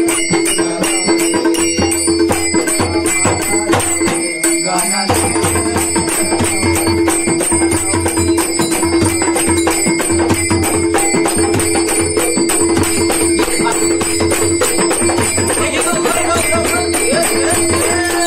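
Devotional aarti accompaniment: a dholki and a tabla drummed by hand in a fast, steady rhythm, with small brass hand cymbals (taal) clashing on every beat. A steady held tone runs underneath. The drums drop out briefly about four seconds in.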